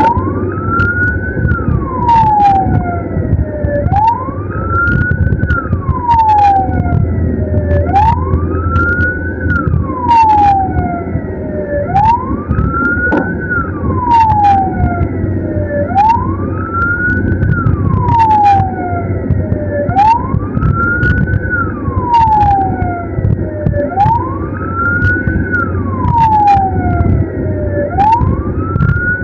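Ambulance siren wailing, each cycle a quick rise in pitch and a longer fall, repeating about every four seconds, over a heavy low rumble of engine and road. Short sharp clicks come every second or so.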